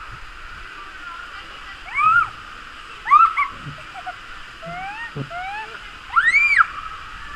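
A young girl squealing with delight in several short, high, rising-and-falling shrieks, the loudest near the end, over a steady rush of water as the tube slides down the water slide.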